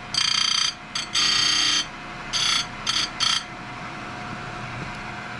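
Simington square-grind chainsaw chain grinder: the spinning stone rasps against a cutter tooth in five short passes, each shorter than the last, giving a touch-up grind. After that the grinder's motor runs on with a steady hum.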